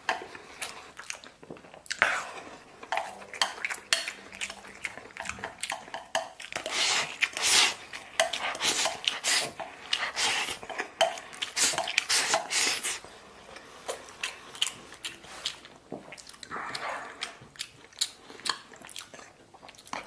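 Chopsticks clicking and scraping against an enamel plate in quick, irregular strokes, mixed with the chewing of mouthfuls of rice pilaf.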